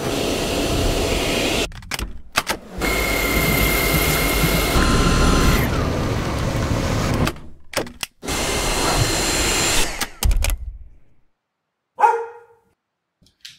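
Dyson V6 cordless stick vacuum running steadily in several short stretches, each starting and stopping abruptly. A dog gives one short vocal sound about twelve seconds in.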